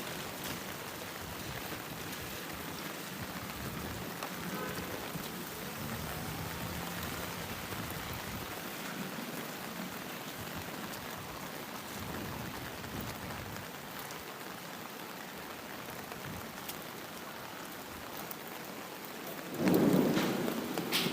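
Steady heavy rain. Near the end a sudden, much louder surge of sound lasts about a second and a half.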